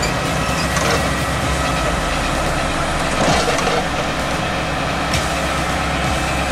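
Claas Jaguar self-propelled forage harvester driving past on the road, its engine running steadily with a high whine over the low rumble.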